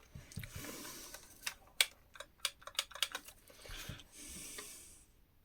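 Hands working on the plastic parts of a Dyson V6 stick vacuum: an irregular run of sharp clicks and taps, with rustling handling noise in between.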